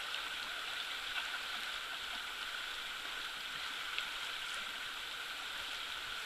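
Steady rushing of a fast-flowing whitewater river.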